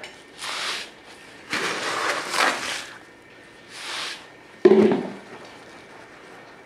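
Sand being poured from a plastic scoop into an elephant-foot hide, hissing in three short pours, followed about five seconds in by a single sharp knock.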